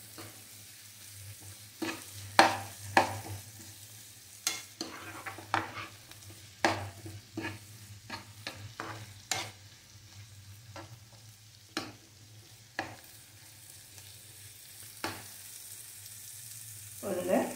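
A steel spoon stir-frying bell pepper pieces in a nonstick frying pan. It scrapes and taps irregularly against the pan over a faint sizzle, with a steady low hum underneath.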